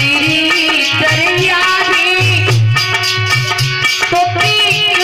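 A woman singing a Hindu devotional song over a harmonium's held chords, with a hand drum keeping a steady rhythm.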